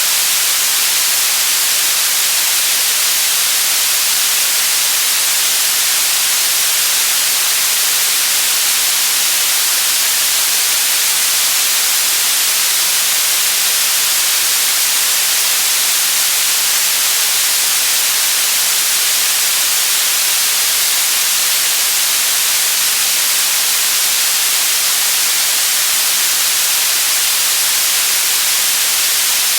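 Steady white noise: an even, loud hiss that does not change.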